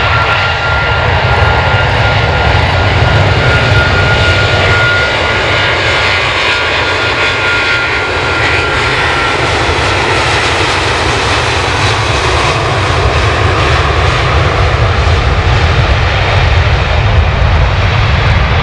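Jet airliner's engines running loud: a steady roar with a thin whining tone on top that fades out about ten seconds in.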